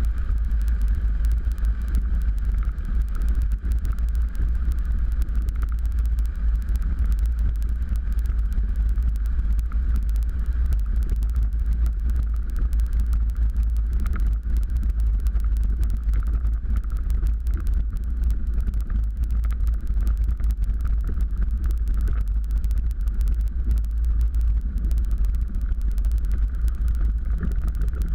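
Cockpit noise of a Cozy Mk4 light aircraft rolling on the ground: its rear-mounted pusher engine and propeller running steadily, with a heavy low rumble.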